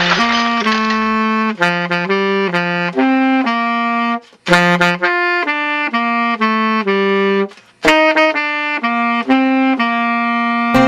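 Background music: a solo wind instrument, such as a saxophone, plays a melody of short held notes. The melody breaks off twice, briefly.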